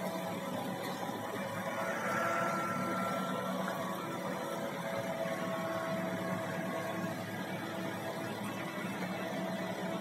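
Telehandler's diesel engine running steadily at idle, a constant hum.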